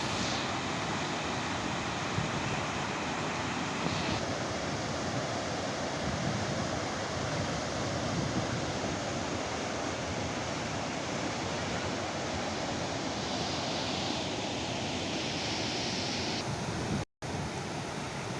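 Pykara Falls' water rushing in a steady, even noise, which cuts out for a moment near the end.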